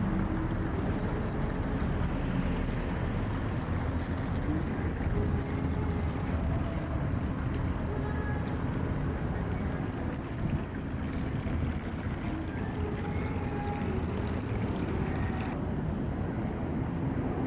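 Steady outdoor ambient noise, mostly a low rumble, with faint brief tones here and there.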